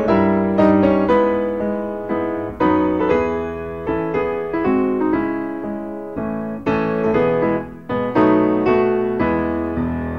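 Piano playing a slow hymn tune in chords, new notes struck about every half second, without singing.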